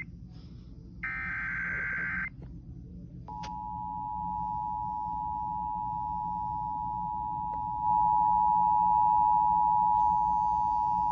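Emergency Alert System tones on an FM radio broadcast: about a second in, a roughly one-second burst of the SAME digital header's warbling data tones, then from about three seconds in the steady two-tone EAS attention signal, which steps louder near eight seconds. The tones mark the start of a National Weather Service severe thunderstorm warning.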